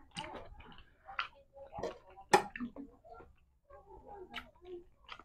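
A person eating close to the microphone: soft chewing and lip smacks with scattered small clicks, and one sharper click a little over two seconds in.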